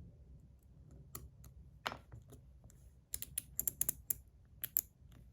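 Small sharp metal clicks and taps as the mechanical liner's parts are slid back onto a 01 EDC slider fidget by hand. There are a few scattered clicks at first, then a quick cluster of them about three to five seconds in.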